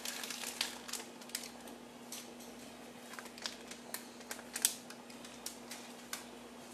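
Scattered, irregular light clicks and crackles from dry spaghetti and its packaging being handled over a pot of boiling water, the sharpest click a little past halfway, over a steady low hum.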